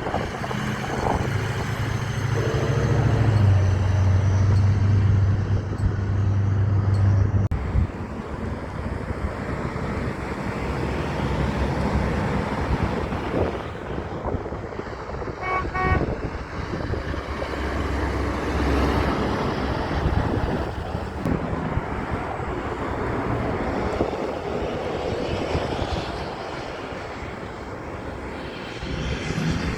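A truck's air horn blows one long, low blast that drops slightly in pitch partway through and cuts off suddenly after about seven seconds. Road traffic noise from passing vehicles follows, with a short series of higher beeps about halfway through.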